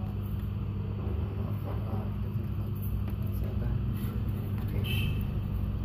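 A steady low hum, with a brief high chirp about five seconds in.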